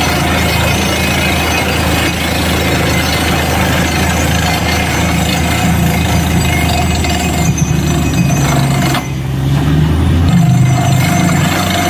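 Borewell drilling machine running steadily, a heavy engine drone with mechanical clatter. The sound dips briefly about nine seconds in, and the low hum shifts a second later.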